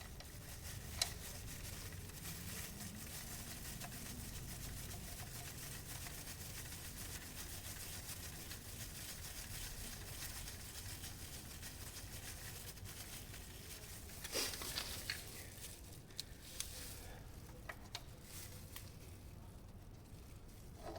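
Faint hand work on a scooter's gear-oil drain bolt, heard as small clicks and rustles over a steady low hiss. A single click comes about a second in, and a cluster of sharper clicks and rustles comes about two-thirds of the way through.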